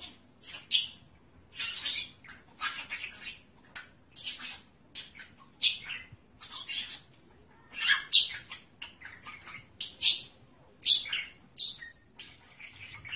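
A small animal making a run of short, high-pitched chirping calls at about one to two a second, irregularly spaced.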